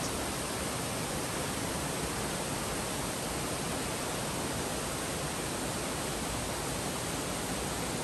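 Steady, even rushing noise of flowing water, with no distinct events.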